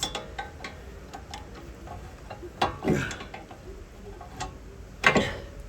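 A hand tool clicking and scraping against a rear brake caliper's piston as the piston is turned and wound back into its bore, the piston stiff and hard to turn. Irregular light ticks with a few louder scraping strokes, the loudest about five seconds in.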